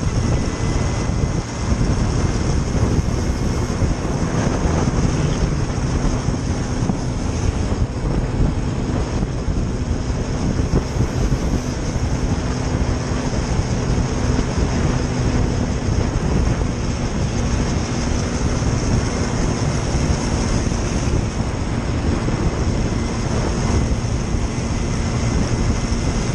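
Steady rush of wind over the microphone with the engine and road noise of a motor scooter cruising at speed.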